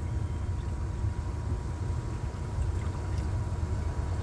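Water pouring in a steady stream from a plastic jug of distilled water into a hydroponic nutrient reservoir, with a low steady rumble underneath.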